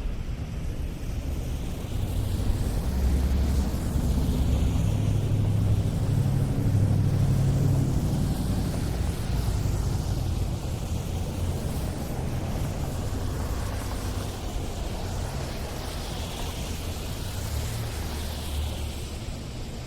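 City street traffic on snowy roads: a steady mix of engines and tyre noise, with vehicles passing close by. The low engine rumble swells for several seconds near the start, then eases off.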